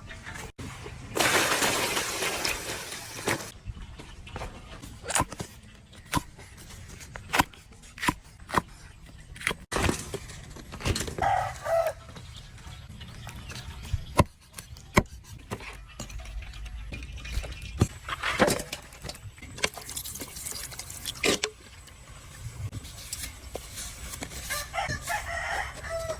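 A rooster crowing twice, once about eleven seconds in and again near the end, over scattered sharp knocks and clicks. A brief hissing rush comes in the first few seconds.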